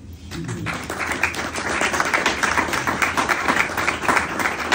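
Audience applauding to welcome a speaker: many hands clapping, swelling within the first second and then continuing steadily.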